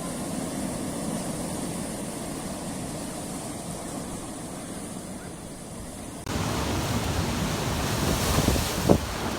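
Surf on a rocky shore. A low, muffled rumble gives way, about six seconds in, to an abrupt switch to louder, fuller wave wash with wind buffeting the microphone, and a sharp knock near the end.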